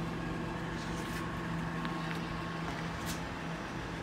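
Steady low background hum with a constant pitch, with a few faint light ticks.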